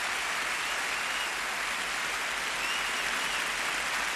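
Large audience applauding, a dense, even clapping that holds steady throughout.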